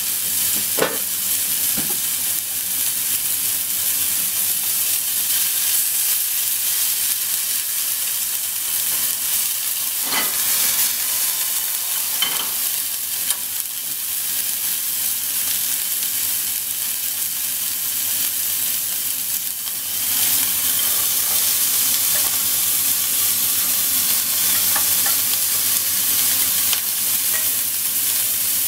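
Bits of meat sizzling in oil in a nonstick frying pan over a gas flame: a steady high hiss with a few faint clicks. The sizzle gets a little louder about two-thirds of the way through.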